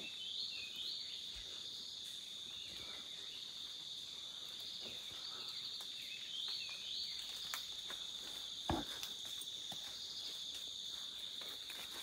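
Steady, high-pitched chorus of forest insects, with twice a short run of rising notes. A single sharp knock about nine seconds in.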